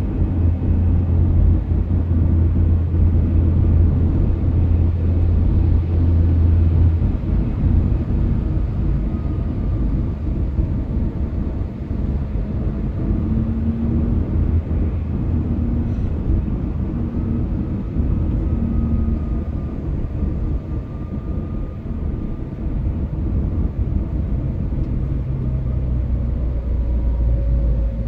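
Engine and tyre road noise heard from inside a moving car's cabin, a steady low drone with a few faint rising and falling whines.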